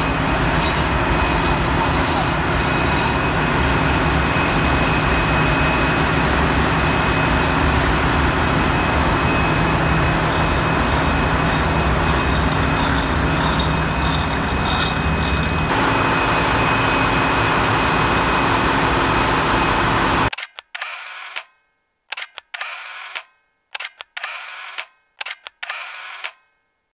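Loud, steady ship's engine-room machinery noise with a steady hum. About twenty seconds in it cuts to silence, broken by a quick run of short, sharp sounds.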